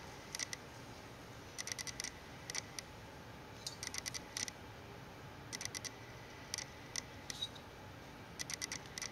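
Camera lens autofocus motor clicking faintly as it hunts for focus, in irregular clusters of a few quick clicks each, about one cluster a second.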